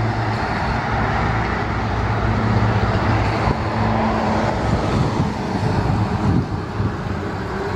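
Ivanovets truck crane on a KAMAZ chassis driving past on a road: its diesel engine running with a steady low drone under tyre and road noise.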